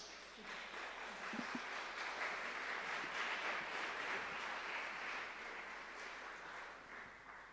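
Audience applauding quietly. The clapping builds over the first couple of seconds, then dies away near the end.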